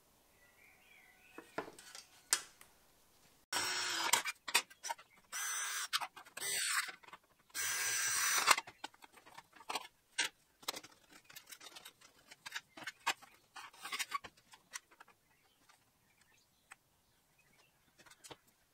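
Power drill boring the marked mount holes through the aluminium fan shroud plate in three short bursts of a second or less each, followed by light clicks and knocks of the metal parts being handled.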